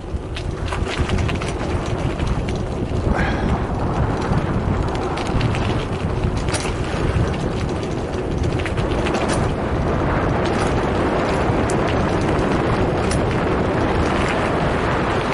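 Mountain bike rolling along a rough gravel track: tyre noise and the bike and camera mount rattling, with many scattered sharp clicks, under a steady rumble of wind on the microphone.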